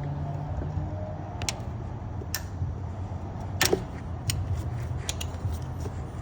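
Several sharp clicks and clinks of hand tools being handled during work in an engine bay, the loudest about halfway through, over a steady low hum.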